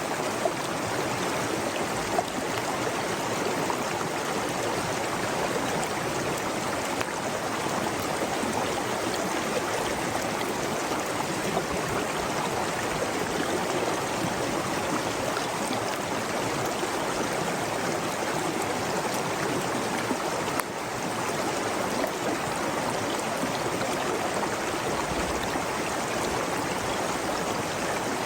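River water flowing steadily, a continuous even wash of sound that dips briefly about two-thirds of the way through.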